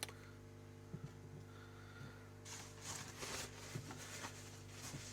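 Small items being handled: a click at the start, a few soft knocks, and rustling through the middle, over a steady low electrical hum.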